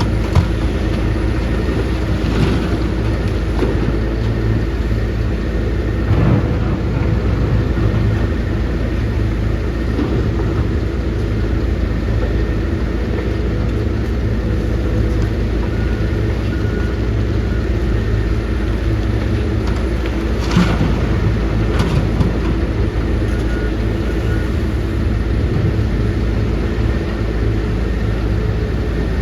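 Heavy diesel engine of a Tata Hitachi excavator running steadily at working speed, with a few sharp knocks spread through.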